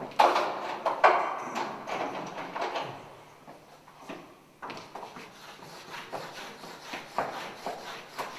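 White chalk dragged hard across a blackboard in long sweeping strokes, one scrape after another. The two loudest strokes come in the first second or so, with a quieter lull around the middle before the strokes pick up again.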